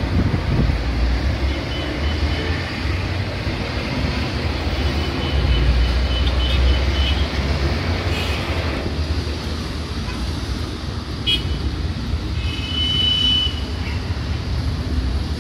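Steady noise of busy multi-lane city street traffic, with car horns tooting several times, one longer toot near the end.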